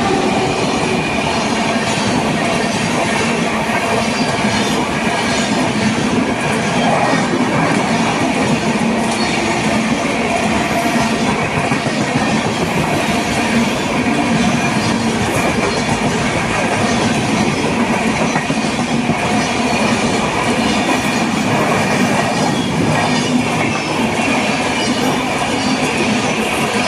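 A locomotive-hauled express train running past at speed, its coaches rolling by in a steady rumble with wheels clattering over the rail joints throughout.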